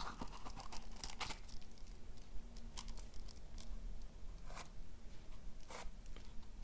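A round Hultafors sharpening stone being worked into its thick leather pouch: irregular rustles, leather creaks and light clicks from hands, leather and stone, busiest in the first second or so.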